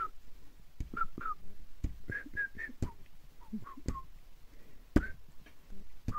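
A person whistling by mouth in short, separate notes, a few of them higher about two seconds in, with occasional soft thumps between the notes. The loudest thump comes about five seconds in.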